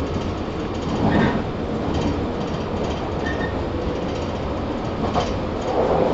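Running noise heard inside a JR 115 series 1000-subseries electric multiple unit under way: a steady rumble of wheels and running gear with clickety-clack over rail joints. Louder surges come about a second in and again near the end.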